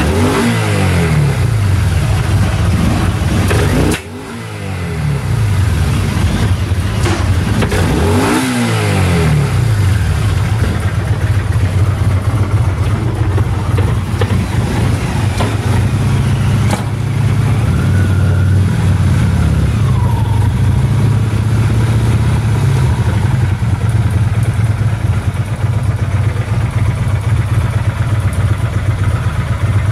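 Kawasaki Vulcan 800 Classic's V-twin engine running as it is checked. The throttle is blipped so the revs rise and fall several times over roughly the first nine seconds, with a sudden drop about four seconds in. After that it idles steadily.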